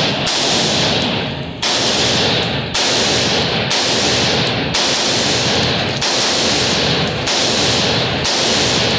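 Gunfire at a shooting range: a steady string of about seven shots, roughly one a second, each followed by a long ringing echo.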